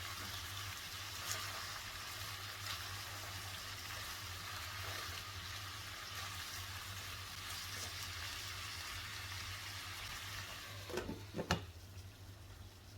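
Food frying in a hot pan with a steady sizzling hiss. About eleven seconds in there are a few sharp knocks and the sizzle stops.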